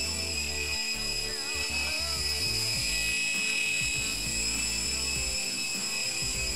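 Air Hogs Hawk Eye micro RC helicopter in flight, its small electric motors and counter-rotating rotors giving a steady high-pitched whine.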